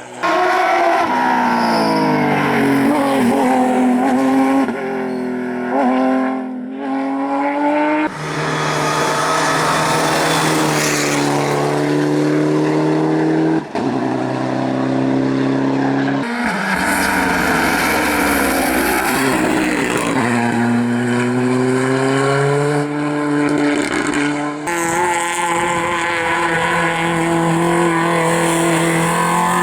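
Rally cars driven flat out on a special stage, engines revving hard and rising and falling in pitch through gear changes. The sound changes abruptly every few seconds, a string of short passages of different cars one after another.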